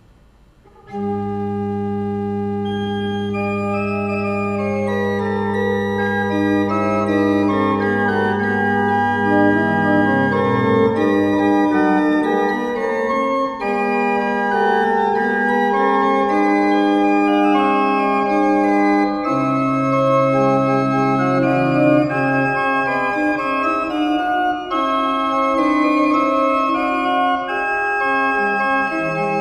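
Organ music: slow, long-held chords that change gradually, starting about a second in.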